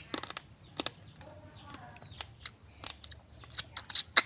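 Eating cooked field crab up close: crunching shell and smacking mouth sounds, a scatter of sharp clicks and cracks that grows denser and louder near the end.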